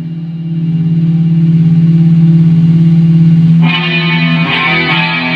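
Custom KH-1 electric guitar played through an amplifier: a held chord swells louder as the volume knob is rolled up, then a new, brighter chord is strummed about three and a half seconds in.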